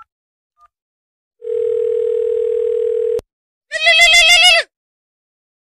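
A last faint phone keypad beep or two, then a steady phone line tone for about two seconds that cuts off with a click. After a short gap comes a loud, quavering horse whinny, a recorded sound effect or ringtone, lasting under a second.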